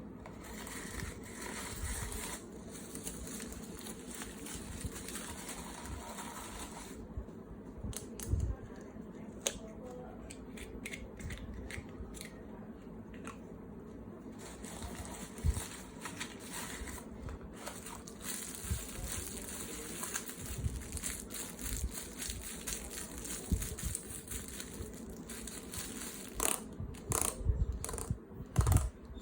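Hands working with craft materials: scattered taps, clicks and rustling, with a denser run of clicks near the end.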